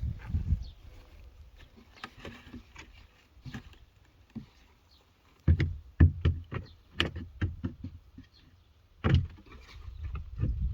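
Sharp knocks and clicks of plastic shed panels being fitted and tapped together: a quick run of them about halfway through and one more strong knock near the end. Wind rumbles on the microphone at the start and near the end.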